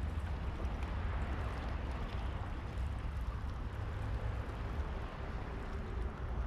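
Steady low rumble with a hiss over it and no distinct events: wind on the microphone at the seashore.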